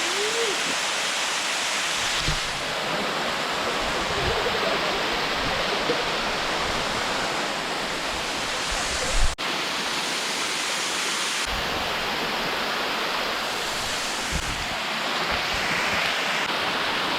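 Rainforest waterfall rushing steadily, with a short knock and break about nine seconds in.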